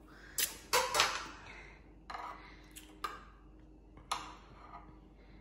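Metal spoon clinking against a ceramic soup bowl as soup is scooped out: about six separate clinks, some with a short ring.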